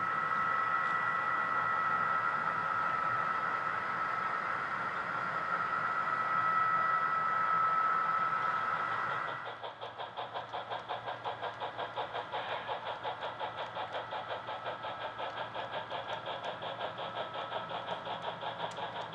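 HO-scale model trains running on a layout: a steady whine for the first nine seconds or so. It then gives way to an even rhythmic chuffing, about four beats a second, from a model steam locomotive's sound unit.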